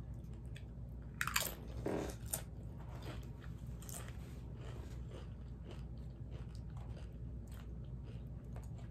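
Biting into a crisp tortilla chip, with loud crunches about a second in, then crunchy chewing that tapers to lighter crackles.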